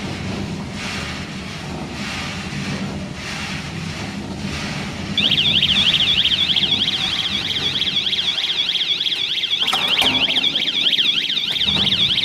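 A cocoa bean roasting machine running with a steady hum. About five seconds in, a loud electronic alarm starts suddenly and keeps sounding, warbling rapidly up and down. This is the machine's timer alarm going off at the end of the roasting time.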